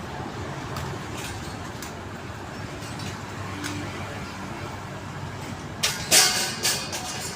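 Steady low rumble like passing road traffic, with a few light clicks and a loud burst of clattering knocks near the end.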